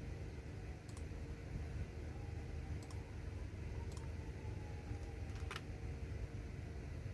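Computer keyboard keys clicking now and then: four separate keystrokes spread over several seconds, rather than continuous typing, over a steady low hum.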